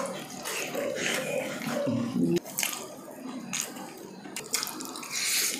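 Close-up eating sounds of saucy pork ribs eaten by hand: irregular wet chewing, lip-smacking and sucking on the bones.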